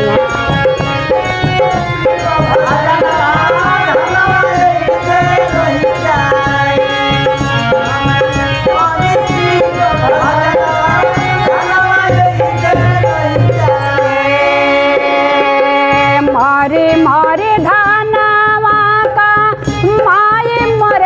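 Instrumental interlude of a Bhojpuri devotional folk song: a melody played over hand drums and a rattling shaker. The drums drop out about three-quarters of the way through while the melody carries on.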